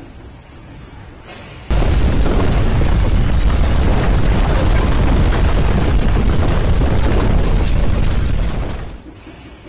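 A sudden loud rumbling roar starts about two seconds in, with scattered crackles over it, and dies away near the end.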